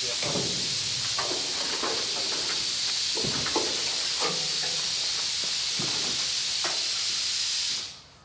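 A steady, loud high-pitched hiss, with faint voices under it, that cuts off suddenly near the end.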